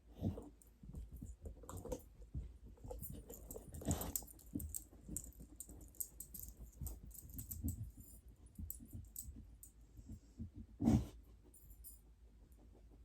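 A dog moving about a hard floor while searching scent samples: scattered light clicks and taps, with a louder knock about eleven seconds in.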